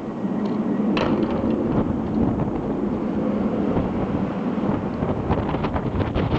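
Blizzard wind buffeting the microphone: a loud, rushing rumble that swells just after the start, with a sharp click about a second in and a few more near the end.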